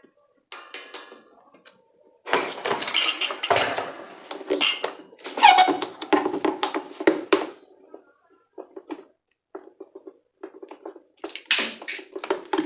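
Fan parts and packaging being handled: irregular rustling, scraping and knocks in bursts, with a short falling squeak about five and a half seconds in.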